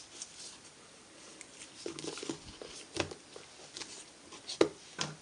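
Paper and card pieces being handled on a craft desk: soft rustling with a few light taps and knocks, the sharpest about four and a half seconds in.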